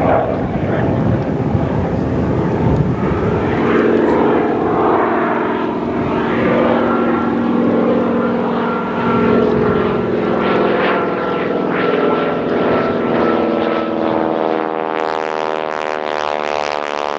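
Propeller warplanes of a Pearl Harbor reenactment flying overhead, their engines droning steadily, with the sound changing character in the last few seconds as a plane comes closer.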